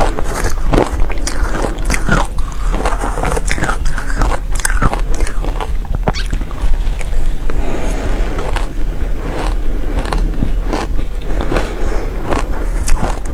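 Powdery shaved ice being bitten and chewed in the mouth, a dense run of sharp, irregular crunches and clicks, with the audio sped up to 1.25 times.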